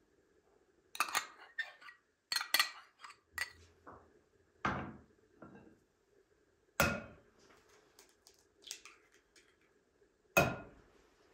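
Metal spoon and ceramic bowls clinking and knocking: scattered light clicks and taps, then three sharper knocks, each with a short ring, the last near the end.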